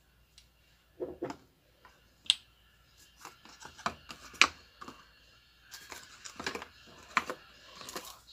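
Small glass dropper bottles and cardboard product boxes being handled and set down on a table: a scattered run of sharp clicks and taps with brief rustling.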